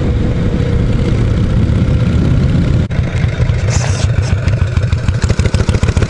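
Harley-Davidson Shovelhead V-twin engine running while riding, at first under a steady rush of wind noise. About three seconds in, the sound breaks off abruptly. After that the engine runs more slowly, and each firing pulse can be heard.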